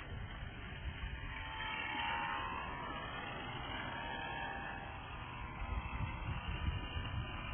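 Electric RC model warplane's brushless motor and propeller whining as the plane flies past overhead, the whine swelling about two seconds in and again around four seconds. A low rumble grows louder near the end.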